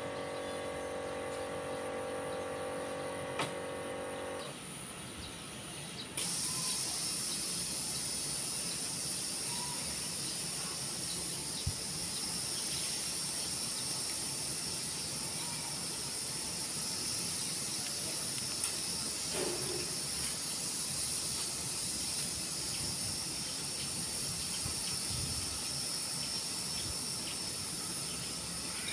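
Tower light generator engine running with an even hum, which cuts off about four and a half seconds in. About two seconds later a steady high hiss starts suddenly and carries on, louder than the hum was.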